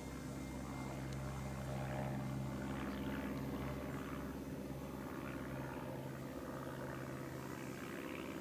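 Electric motor and propeller of a small RC aeroplane running steadily in flight, a little louder a couple of seconds in.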